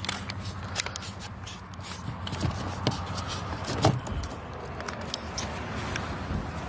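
Scattered light plastic clicks and rattles as the truck's door switch and its wiring connector are handled and plugged in, over a steady low hum.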